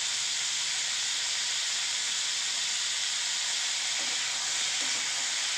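Chopped onions and tomatoes frying in hot oil in a kadai, a steady sizzling hiss at an even level as they are sautéed.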